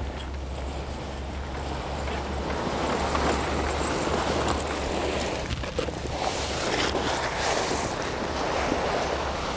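Heavy vinyl flatbed tarp being pulled off a load and sliding down onto gravel: a continuous rustling, swishing noise that swells and eases as it moves, over a steady low rumble.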